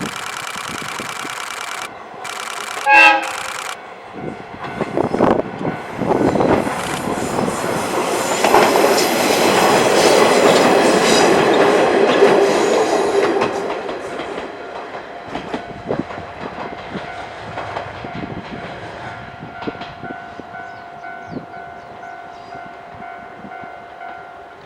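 A WKT-550 diesel railcar sounds one short horn blast about three seconds in, then passes with its engine and wheels on the rails. The sound grows louder to a peak around the middle and fades away.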